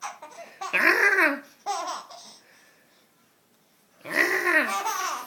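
Baby laughing in loud, high-pitched bursts: one about a second in, a short one just after, then a pause and another long burst near the end.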